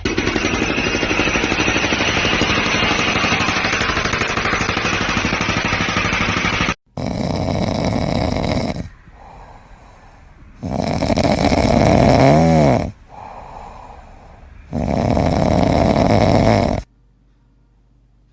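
An animal snoring loudly with a rattly sound. A long first stretch is followed, after a short break, by three separate snores with quieter breaths between them.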